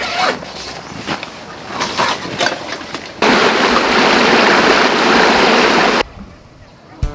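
Knocks and rustling as a canvas bag and gear are handled. About three seconds in, a small stream running over rocks takes over, loud and steady, and it cuts off suddenly about three seconds later.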